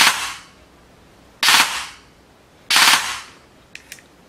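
Airsoft AEG gearbox (full-size cylinder, M100 spring, AIP high-speed 5000 motor on a 3-cell LiPo, Titan Gate mosfet) cycling in three short full-auto bursts about a second and a half apart, with the rate of fire set to 80%. A few light clicks follow near the end.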